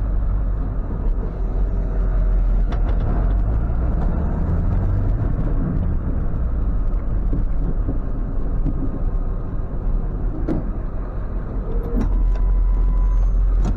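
Ford F550 tow truck's engine running steadily at low speed as the truck turns around, with a couple of sharp clicks near the end.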